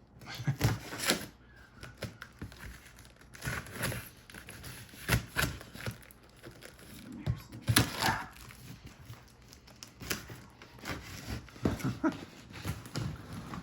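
Cardboard box and packing material being handled and opened: irregular crinkling, tearing and scraping with occasional knocks.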